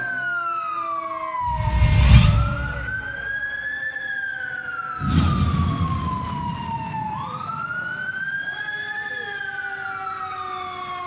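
Fire truck siren on a slow wail, its pitch climbing and falling again about every five seconds. Two loud rumbling bursts break in over it, about two and five seconds in.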